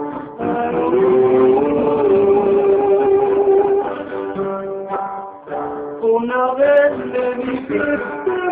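Amateur live music: an acoustic guitar played with voices holding long sung notes, moving into shorter changing notes about halfway through.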